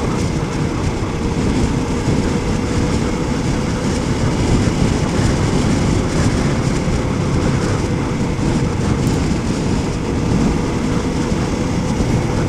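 Motorcycle riding at a steady cruising speed: the engine runs with a steady hum under an even rush of wind and road noise.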